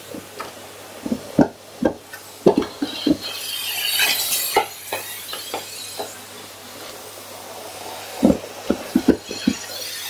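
Vacuum cleaner running steadily while its floor head is worked over a wooden floor, with a series of sharp clicks and clatters of hard plastic Lego bricks being knocked about and sucked up. A rushing hiss swells briefly about four seconds in.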